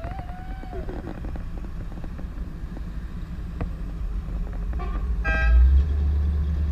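Classic cars driving slowly past, their engines rumbling. A car horn toots briefly about five seconds in, and the engine rumble then builds to its loudest as a car passes close.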